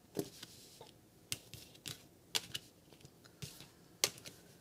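Tarot cards being handled and pulled from the deck: a run of light, sharp, irregular clicks and snaps of card stock, about ten in all.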